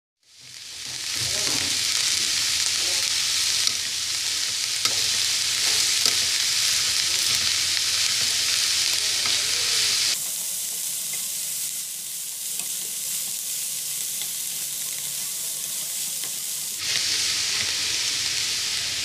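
Shredded chicken, corn, carrot and capsicum sizzling in hot oil in a nonstick frying pan, stirred with a spatula. The frying hiss is steady, with spatula scrapes mixed in, and its level steps up or down abruptly a few times.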